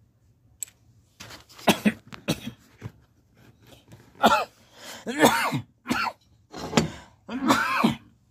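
A person coughing and clearing their throat in several harsh bursts, the loudest in the second half, with light clicks in between.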